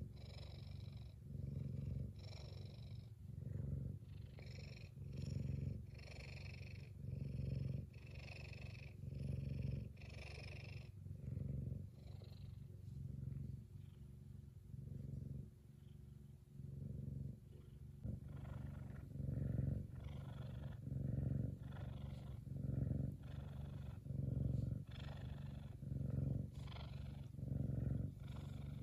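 F2 Savannah cat purring loudly while being scratched under the chin, a contented purr. The low rumble swells and fades with each breath in and out, a little more than once a second.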